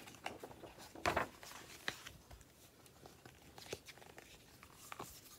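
Pages of a hardback picture book being turned and handled: faint papery rustles and flaps, loudest about a second in.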